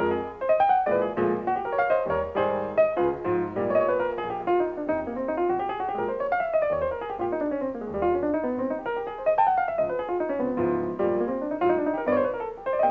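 Piano music with quick runs of notes rising and falling.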